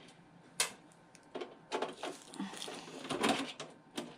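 A scattered series of light clicks and knocks from handling a desktop computer case while opening it, the sharpest click about half a second in.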